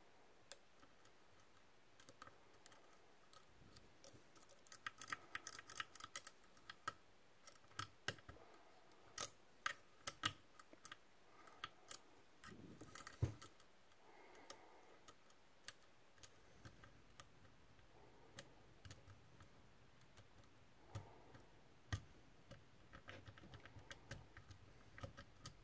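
Faint, irregular clicks and ticks of a lock pick and tension wrench working the pins of a Medeco M3 pin-tumbler lock cylinder.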